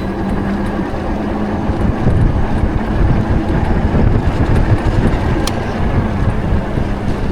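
Road noise on a moving e-bike: a rough, steady rush over the microphone mixed with the noise of nearby car traffic, with a faint steady hum underneath.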